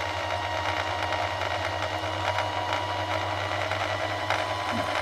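Electric sewing machine running steadily at a constant speed to drive its bobbin winder, spinning a bobbin as it fills with thread, with a thin steady whine over a fast, even whirr.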